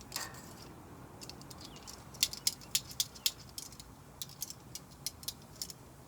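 Irregular sharp, high-pitched clicks and crackles as shrimp kabobs cook over the heat, coming thick and fast from about two seconds in.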